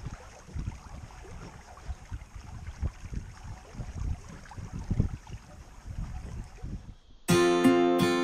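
Wind buffeting the microphone of an action camera on a small sailboat under way, a gusty low rumble. About seven seconds in it cuts off and strummed acoustic guitar music begins.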